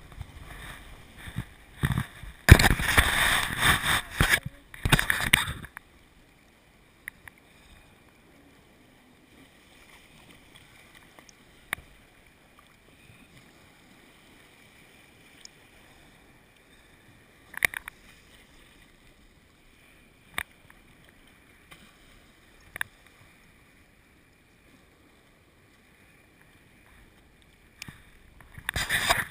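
Water washing and splashing around an inflatable kayak in the surf. About six seconds in it drops almost to silence, broken by a few sharp, separate clicks as a carabiner and cord are handled near the camera, and the water noise returns near the end.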